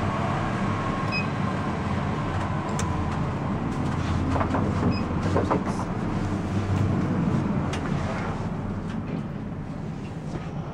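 Steady low hum inside a geared traction elevator car, with several sharp clicks of its car buttons being pressed during the first eight seconds.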